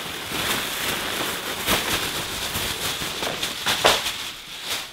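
Thin plastic shopping bag rustling and crinkling as it is shaken out, with a few light knocks as packaged tackle items drop onto the stool.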